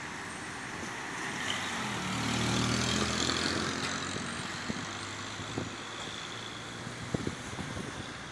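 Road traffic going by: a car passes, then a heavy semi-trailer truck's diesel engine grows louder and passes about two to three seconds in. A few short knocks follow in the second half.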